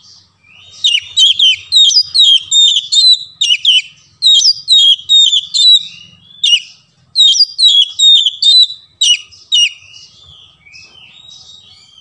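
Magpie-robin (kacer) in full song: loud, rapid runs of clear whistled notes sweeping downward, phrase after phrase, easing into softer twittering near the end.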